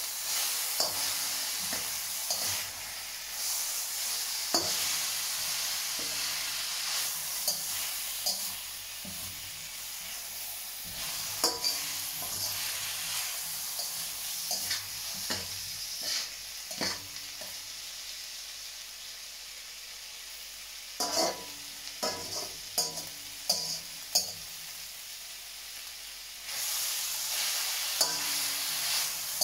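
Beef and vegetable stir fry sizzling in a hot steel wok on the wok's residual heat with the hob switched off, while a slotted metal spatula scrapes and knocks against the wok at irregular moments. The sizzle is quieter through the middle and louder again near the end.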